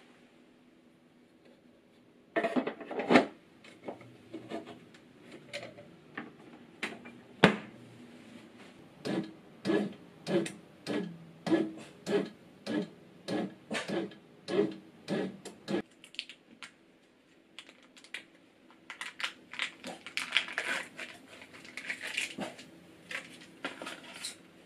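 Bread machine kneading: a clunk, then a low motor hum under a run of regular knocks, about two to three a second, as the dough is worked in the pan; the hum and knocking stop about two-thirds of the way in. Lighter clicks and crinkling follow near the end.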